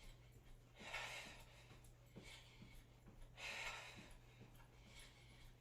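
Faint, heavy breathing of a person exercising, about four audible breaths, one every second or so, over a steady low electrical hum.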